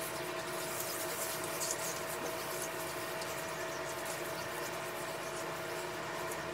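Homemade coffee, brown sugar and oil scrub rubbed over a wet leg by hand: faint rasping strokes over a steady hiss, the rasping clearest in the first couple of seconds.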